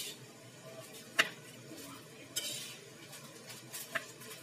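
Kitchen knife cutting limes on a board: a few knocks of the blade striking the board, the sharpest about a second in and a lighter one near the end, with a short scraping rustle in between.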